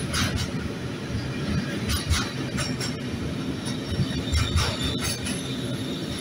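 Container freight wagons rolling past at a station: a steady low rumble of wheels on rail, with short high-pitched screeches every second or so and a thin, steady squeal setting in about two-thirds of the way through.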